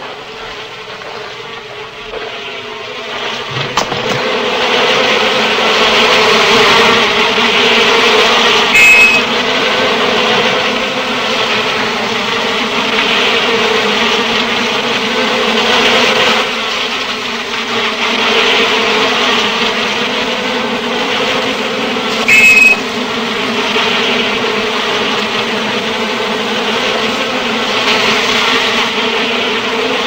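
Swarm of honeybees buzzing, a dense loud drone that builds over the first few seconds and swells and eases: the bees are roused in defence as their nest is broken into. Two brief sharp louder sounds stand out, about nine and twenty-two seconds in.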